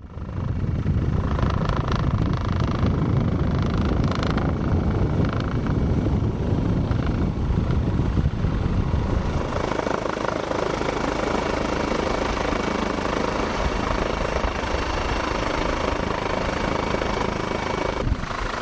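Helicopter running: a steady, loud rotor and engine noise, changing character about halfway through and briefly dropping near the end.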